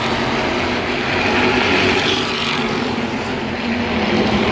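Engines of a pack of spec late model stock cars running together as they go around the oval: a steady, loud drone that swells about two seconds in.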